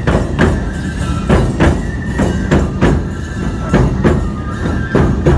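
Live Nebuta festival hayashi band playing: taiko drums beat a steady rhythm of about three strokes a second, with high held flute notes and jingling hand cymbals over the drums.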